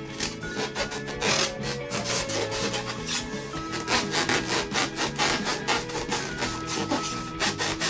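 Rapid rasping rubbing strokes, several a second, over background music with a stepping melody.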